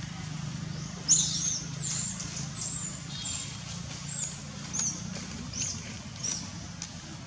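Baby long-tailed macaque giving a run of short, high-pitched squeaks, about eight of them, the first and loudest about a second in, over a steady low hum.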